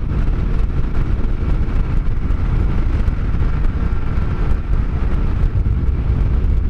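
Yamaha Ténéré 700 parallel-twin motorcycle running on the move, heavily overlaid by a steady wind rumble on the microphone.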